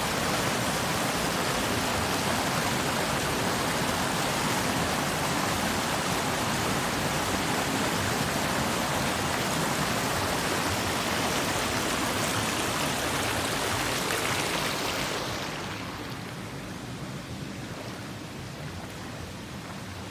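River water rushing over a small rock cascade into a pool, a steady full hiss of white water. About fifteen seconds in it drops to a quieter, duller flow of calmer water over a shallow rocky stretch.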